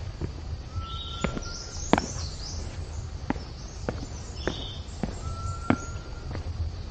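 A hiker's footsteps on a stone-stepped forest trail, a sharp step roughly every second. A bird calls twice, each time a short high note and then a level whistle.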